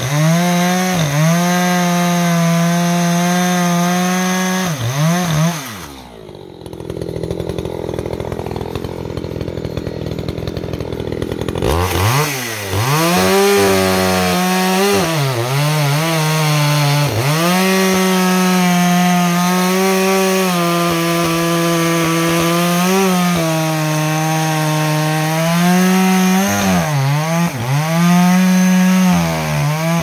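ECHO CS-620P two-stroke chainsaw running at high revs and cutting wood, its pitch dipping briefly now and then. About six seconds in it drops to a low, rough idle for some five seconds, then revs back up and cuts again.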